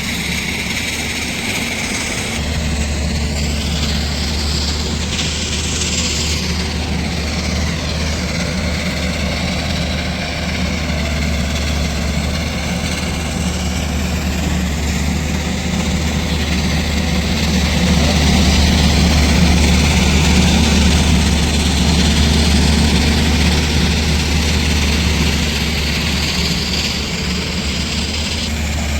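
Heavy diesel engine of a Tata Hitachi 210 LC excavator running steadily while it works, with a deep steady drone. A higher whine glides in pitch a few seconds in, and the engine grows louder about two-thirds of the way through.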